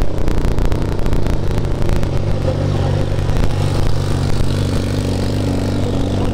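Quad bike (ATV) engine running steadily while riding over beach sand, with a run of sharp clicks and knocks in the first two seconds.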